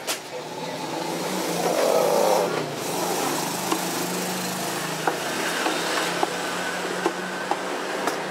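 A steady motor drone with a low hum, swelling about two seconds in, under scattered light clicks and knocks from a speaker cabinet being handled.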